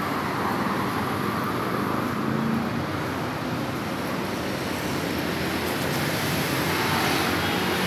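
Steady background noise of road traffic, even throughout with no distinct events.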